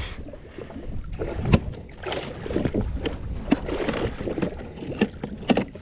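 A plastic esky on a jet ski being shut and latched: several sharp knocks and clicks over a low steady rumble of water and wind.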